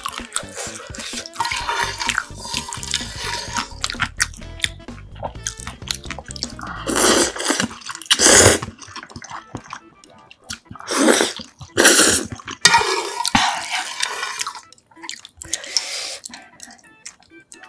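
Chopsticks stir and lift soupy instant ramen noodles in a metal pot with light clinks. From about seven seconds in come several loud, wet slurps of the noodles.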